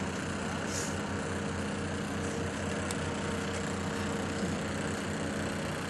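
Steady engine hum with an unchanging pitch and a light hiss over it, with a faint tick about three seconds in.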